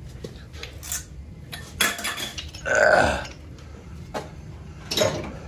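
Sharp knocks and clanks of an old gas boiler's sheet-metal casing being handled as it is worked loose for removal, with a short loud throaty vocal sound from a person about three seconds in.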